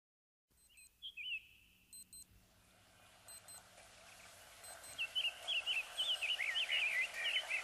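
Songbirds chirping over a fading-in outdoor ambience: a couple of quick chirps about a second in, then a busy run of chirps from about five seconds in. Faint high pips sound at intervals.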